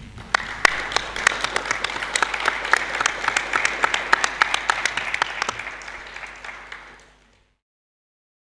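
Audience applauding, many hands clapping densely, the clapping thinning and dying away about seven seconds in.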